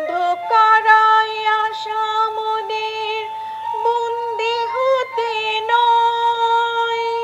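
Slow melodic music of long held notes that change pitch only a few times, with a slight waver on some notes.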